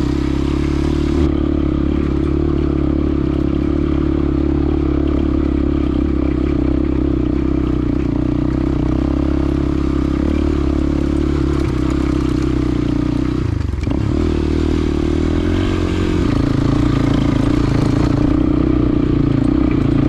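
Motorcycle engine running steadily under way. About 13.5 s in, the engine note drops and then climbs back over a couple of seconds, and it runs a little louder near the end.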